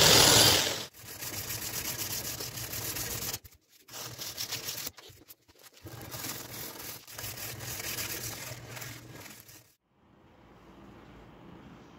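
Electric drill with a sanding attachment grinding against a wooden knife handle, stopping about a second in. Then quieter, uneven rubbing as the handle is worked by hand, with a few short pauses.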